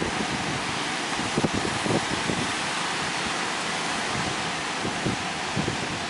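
Strong wind blowing and buffeting the microphone: a steady rushing hiss with many short, irregular low thumps.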